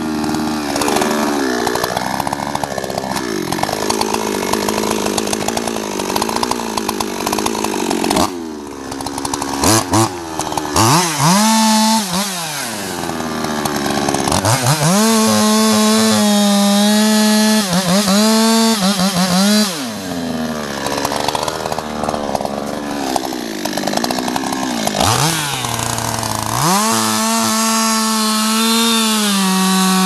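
Two-stroke chainsaw cutting through the trunk of a large tree at its base, the engine held at high revs under load and dropping back and climbing again several times as the bar works through the wood.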